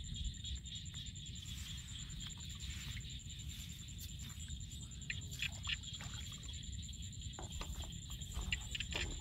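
Hands digging through wet mud and shallow water for mud clams: soft squelches and small splashes, with a cluster about five seconds in and another near the end, over a steady low rumble.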